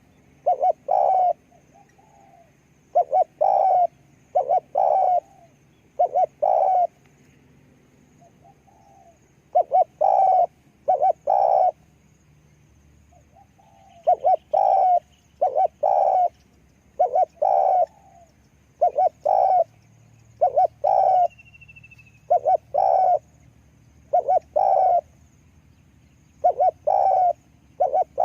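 Spotted dove cooing: phrases of two to four low, hooting notes, repeated every couple of seconds.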